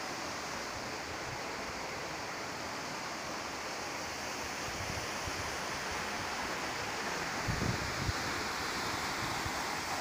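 Waterfalls pouring into a rock pool, a steady, even rush of water. About seven and a half seconds in there is a brief low buffeting on the microphone.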